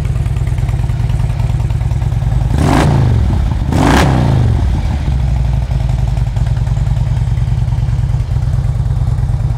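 2006 Harley-Davidson Electra Glide Classic's Twin Cam 88 V-twin idling steadily through true dual Rinehart exhausts, blipped twice in quick succession about three seconds in before settling back to idle.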